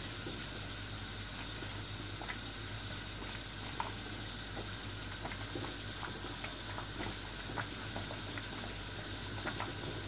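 Rice and chicken pulao boiling in an open pressure cooker on high flame, a steady bubbling hiss with faint scattered pops as the water boils off, while a wooden spatula stirs through the pot.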